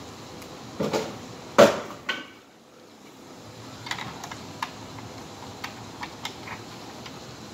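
Knocks and clicks of a Simplex horn strobe's hard plastic housing being handled and fitted to its ceiling mount: a few sharp knocks in the first two seconds, the loudest about a second and a half in, then a run of lighter clicks.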